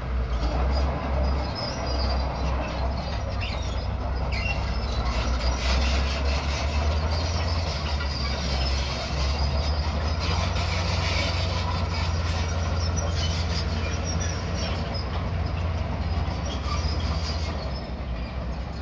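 Crawler bulldozer's diesel engine running steadily under load while its steel tracks clank and squeal as it pushes dirt and stone. It grows a little fainter near the end as the machine moves off.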